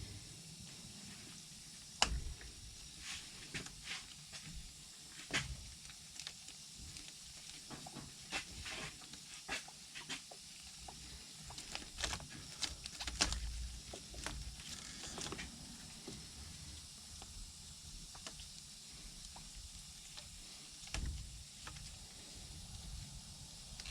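Hands working heavy plastic poly nets onto an ATV's nerf bars: scattered clicks, taps and rubbing of the netting, with a few dull knocks. The sharpest click comes about two seconds in.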